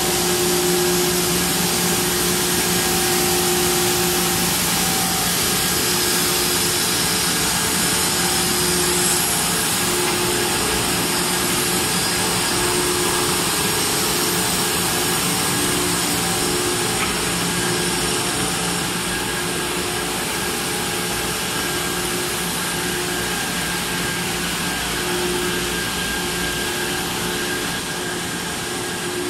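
Large polyethylene pipe extrusion line running: a steady hum of motors and pumps under a constant hiss, with a few steady tones through it.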